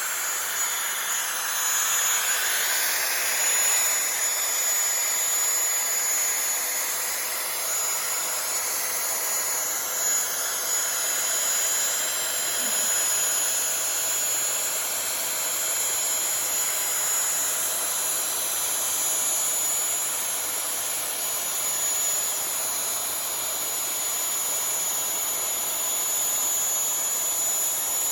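Desktop CNC router's spindle running and milling 2 mm aluminium sheet with a 1/8-inch up-cut bit: a steady high whine over hiss.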